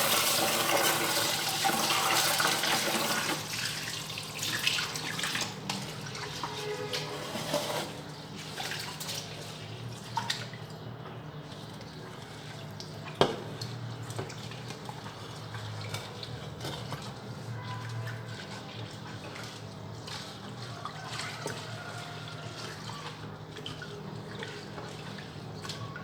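Tap water runs into a pot of uncooked rice for the first few seconds, then the rice is washed by hand in the water with small splashes and clicks and one sharp knock about 13 seconds in. A steady low hum sits underneath.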